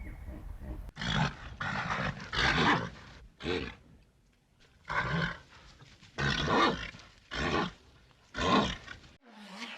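An animal giving a series of about eight short, harsh roaring calls, separated by irregular pauses.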